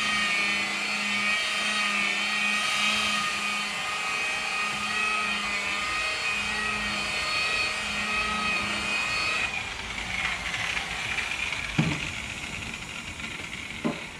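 Electric sander running steadily on an oak stair tread with 180-grit paper, switched off about two-thirds of the way through; two short knocks follow.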